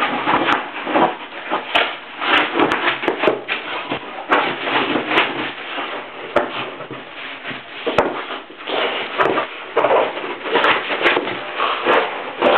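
A whippet tussling with a big balloon: irregular rubbing, scuffing and bumping of the balloon's skin against the dog and the carpet, with scattered sharp clicks.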